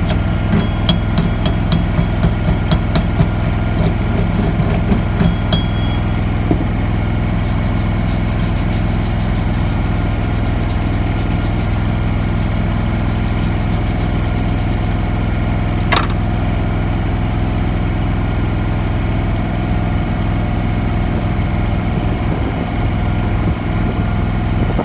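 Lincoln Champion Elite engine-driven welder running steadily. A run of light clicks and taps comes in the first few seconds, and there is one brief high chirp about two-thirds of the way through.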